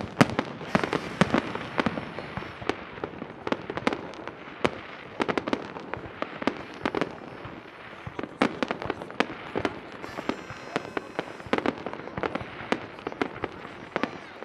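Aerial fireworks display bursting: a dense, irregular run of sharp bangs and crackles, several shells going off each second.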